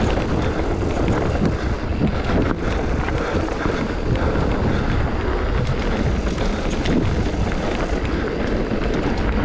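Wind buffeting the microphone on a fast mountain-bike descent, over a steady rumble of tyres on a rough, muddy trail with scattered knocks and rattles from the bike.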